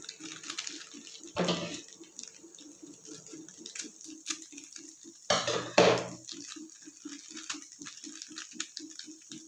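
A foil masala sachet handled and snipped open with scissors: a crinkle about a second and a half in, then two louder cuts about half a second apart in the middle. Under it runs a faint, fast, regular pulsing.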